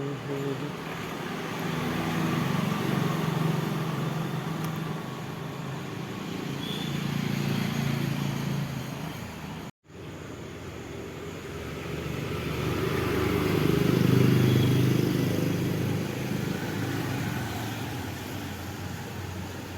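Road vehicles passing, each one rising and fading over several seconds, twice, with an abrupt cut between them.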